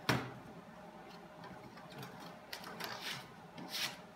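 A sharp knock, the loudest sound, then a few short scraping and rubbing strokes as body filler is scraped off a stir stick onto a sheet of corrugated cardboard.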